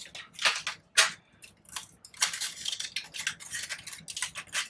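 Paper flowers and leaves rustling and crinkling as they are handled and pushed into a bouquet: a run of sharp crackles and light ticks, densest after about two seconds.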